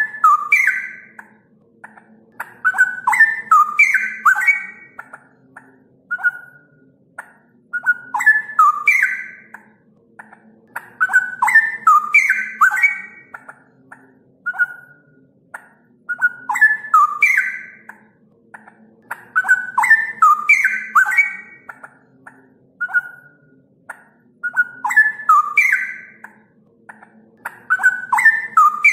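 Straw-headed bulbul (cucak rowo) singing: loud phrases of rich, clear whistled notes that recur about every four seconds, with single short notes between them. A faint low hum runs underneath.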